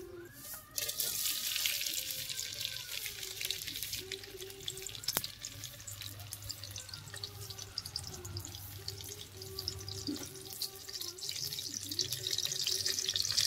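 Sliced green chillies frying in hot oil in an aluminium kadai: a steady sizzle full of small crackles that starts about a second in and grows louder near the end.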